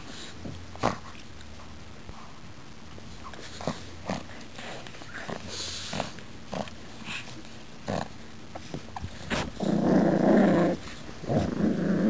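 Pugs growling as they tug at a plush toy, with short scattered scuffling sounds. The loudest growl comes about nine and a half seconds in and lasts just over a second, and another starts near the end.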